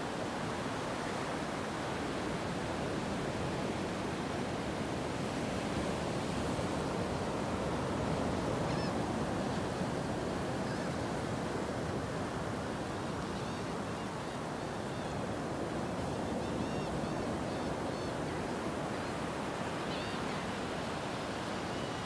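Small ocean waves breaking and washing up a beach, a steady surf noise. From about nine seconds in, gulls give faint, short, high calls now and then.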